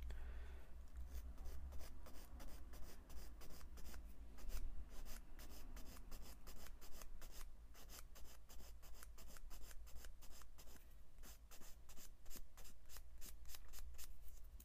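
Sanding stick rubbed in quick short strokes against a small plastic model-kit part to clean it up: a dense run of dry scrapes, several a second, over a steady low hum.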